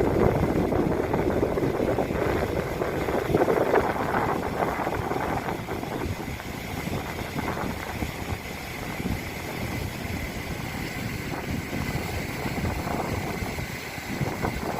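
Wind buffeting the microphone, gusting harder in the first few seconds and then easing to a steady rush.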